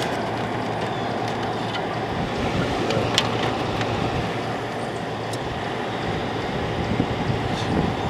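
General Electric 5500 BTU window air conditioner running with its compressor and fan on: a steady hum and rush of air. The compressor is running normally, cooling the whole coil. A few light clicks come through, the sharpest about three seconds in.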